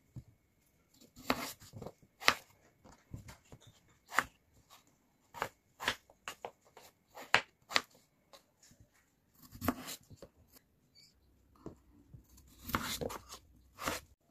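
Kitchen knife cutting raw peeled potatoes into chunks, each cut ending in a sharp knock of the blade on a wooden cutting board. About a dozen irregularly spaced cuts.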